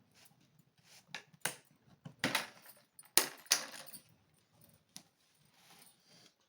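Handling noise from unboxing: a series of sharp clicks and knocks mixed with short rustling scrapes of packaging, the loudest a little over two and three seconds in.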